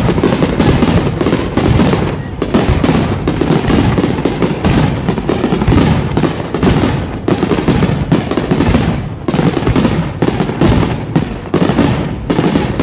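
A dense, continuous barrage of aerial fireworks: many shells and mines bursting in quick succession, crackling and booming without pause, in a large set-piece display.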